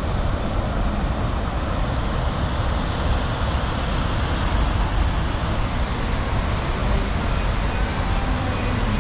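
Steady rushing of a landscaped rock waterfall spilling into a pool, over a low rumble.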